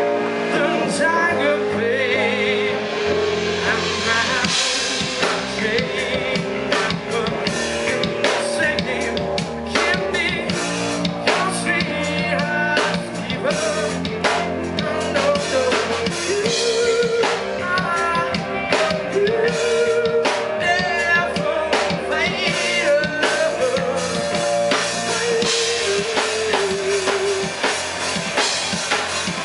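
Live rock band playing at full volume: electric guitars, bass guitar and drum kit, with steady drum hits driving the song.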